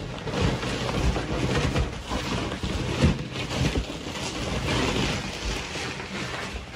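Rustling of a foil bubble-insulation liner and cardboard being handled while plants are unpacked from a shipping box, with a few soft knocks.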